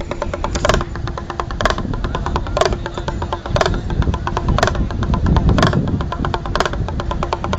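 Loud drum music: a heavy beat about once a second, each stroke sliding down in pitch, with fast lighter strokes filling in between.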